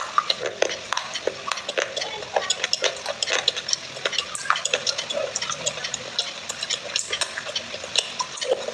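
Wet clay paste with soaked clay-pot pieces being stirred and squished in a bowl: a dense, irregular run of sticky clicks and crackles.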